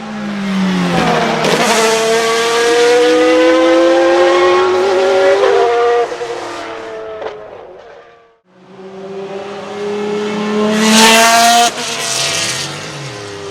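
Naturally aspirated GT1-derived race car engine accelerating hard at high revs, its pitch climbing steadily and then cutting off sharply. This happens twice, the second run starting after a brief near-silent gap.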